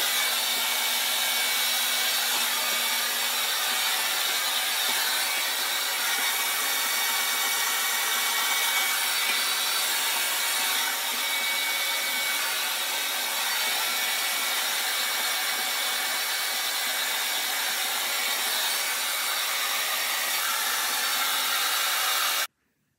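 Handheld hair dryer running steadily, a loud rush of blown air with a thin steady whine in it; it stops abruptly near the end.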